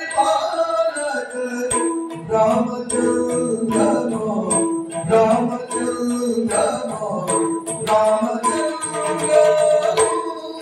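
Yakshagana music: a male singer chanting a verse over a steady drone, with maddale drum strokes and small hand cymbals keeping the beat.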